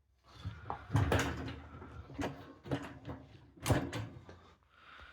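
Steel barbecue parts knocking and clanking as they are handled and fitted together, with about four sharp knocks and quieter rattling between them.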